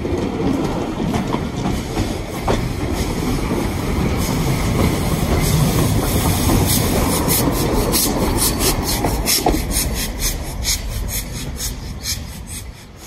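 Steam-hauled train passing close: the Scots Guardsman steam locomotive and its coaches rumbling by, building up and then fading near the end. From about halfway in there is a regular clicking, about two to three a second, with the wheels going over the rail joints.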